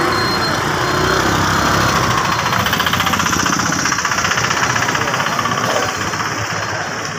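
Motorcycle and scooter engines running as they ride past close by. The engine note pulses evenly from about two and a half seconds in to about six seconds, then fades.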